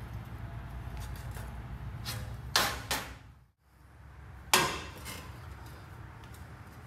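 Sharp metal clanks of exhaust pipe parts being handled and fitted: two close together, then another about two seconds later, over a low steady hum.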